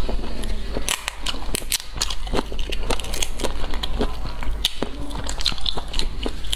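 Close-miked eating sounds: braised sea snail shells clicking and cracking as they are worked apart with the fingers, mixed with wet chewing. Many sharp clicks come in quick, irregular succession.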